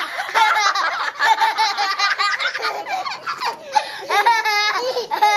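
Young children laughing hard, several voices at once, with a woman laughing along; a run of quick ha-ha pulses about four seconds in.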